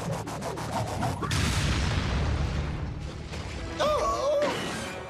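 Cartoon action sound effects: a rapid clattering as a robot curled into a ball flies through the air, then a heavy crash with a long rumbling boom about a second in. A short wavering vocal cry comes near the end, with music under it.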